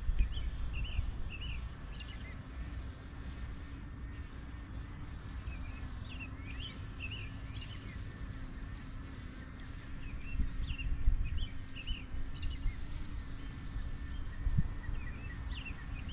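Ospreys calling in clusters of short, high chirps that come again every few seconds, over a steady low rumble and a faint steady hum.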